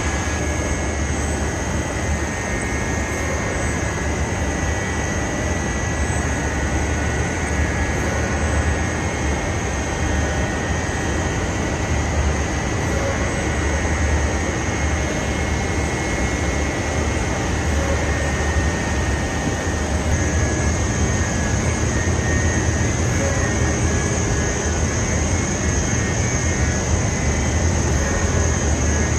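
Steady, loud machinery noise from a rock wool production line, a constant low hum with faint high-pitched whines above it.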